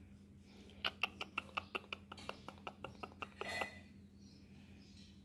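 Cat in heat giving a quick run of short chirping calls, about five a second, ending in a slightly longer call about three and a half seconds in.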